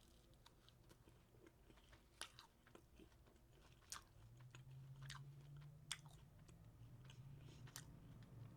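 Near silence with a person chewing faintly, a few soft crunchy clicks, and a faint low hum that sets in about four seconds in.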